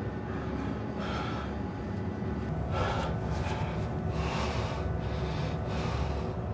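A person breathing hard in quick, noisy breaths, about two a second, starting a little over two seconds in, over a low steady hum.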